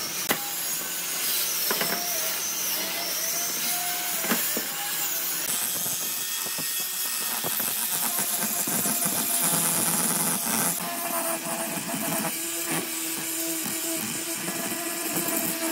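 Handheld angle grinder fitted with a drum sanding attachment running and sanding the curved faces of a pine block, its motor pitch wavering as it is pressed into the wood, then holding steadier in the second half. A few sharp knocks come in the first few seconds.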